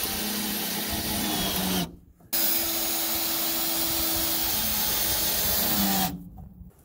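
Cordless drill driving screws into timber in two long runs, the first about two seconds and the second about four, each winding down in pitch as the trigger is released.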